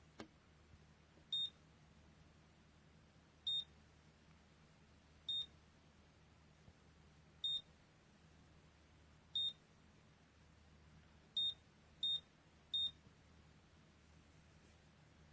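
Short electronic beeps from the touch-screen control panel of a thermoelectric wine cooler, as its buttons are pressed: eight single beeps, about two seconds apart at first, the last three in quicker succession.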